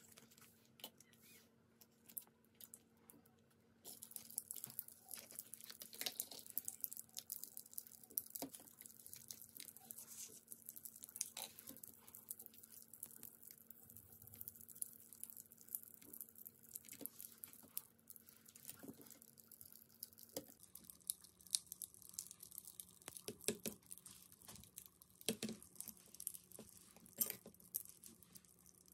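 Faint handling of thin plastic candy packaging: many scattered small clicks, taps and crinkles as a plastic jelly cup and a small plastic pick work against a plastic frying-pan-shaped tray holding a jelly candy.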